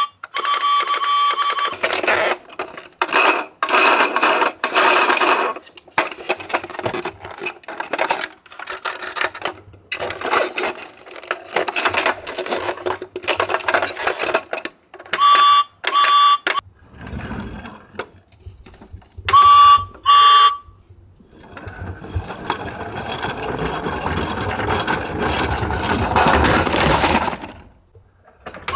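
Toy ambulances' electronic sound effects played through small speakers: short chopped siren and alarm clips, with pairs of high beeps. Near the end comes about six seconds of steady rolling noise that cuts off sharply, typical of a toy car running down a slope.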